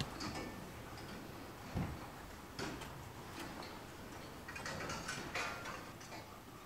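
Faint, irregular clicks and taps, with a soft thump about two seconds in and a cluster of ticks near the end.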